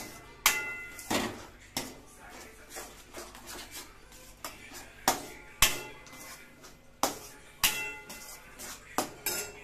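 A spatula stirring egg and onions in a steel wok-style pan, knocking and scraping against the metal in irregular strikes, several of which leave a brief ring from the pan.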